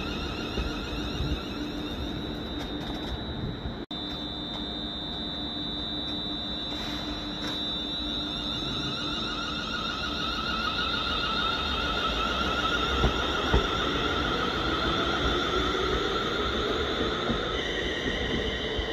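ScotRail electric multiple unit pulling away, its traction motors and drive electronics giving a steady high-pitched whine over a low rumble. The whine jumps in pitch near the end while a lower tone rises as the train gathers speed.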